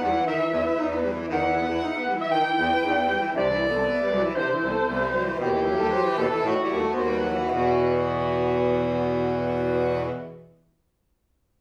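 Saxophone quartet (soprano, alto, tenor and baritone saxophones) playing: busy moving lines settle, about three quarters through, into one held chord that cuts off near the end, closing the movement.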